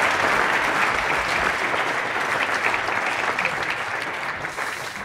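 Large audience applauding, the applause slowly dying away toward the end.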